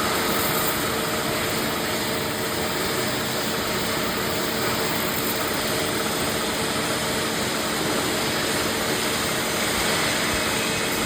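CNC machine running steadily: a constant mechanical whir with a faint steady hum, unchanging in level.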